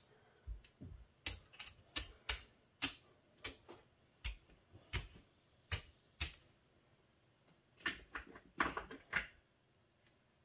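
Clay casino chips clacking against each other as a hand picks them up off a craps layout and stacks them: a run of irregular sharp clicks, a short pause, then a second quick cluster near the end.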